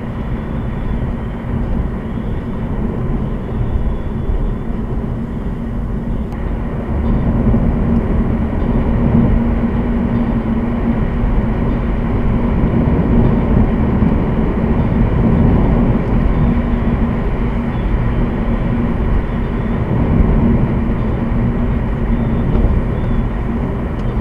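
Car driving on a country road, heard from inside the cabin through the dashcam's microphone: steady engine and tyre noise with a low hum. It gets a little louder after about seven seconds.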